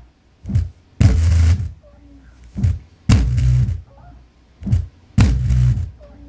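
Subwoofer playing a deep bass beat in a repeating pattern: a short hit and then a longer half-second one, about every two seconds, each pulse carrying a harsh buzz on top of the low tone.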